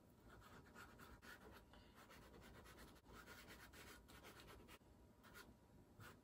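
Faint scratching of a pastel stick on paper in quick, short, irregular strokes, several a second, as grass stalks are drawn in.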